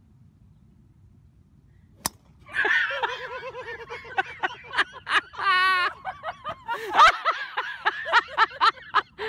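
A single sharp crack about two seconds in as a golf driver strikes a trick ball that bursts into a cloud of white powder, followed by people laughing hard.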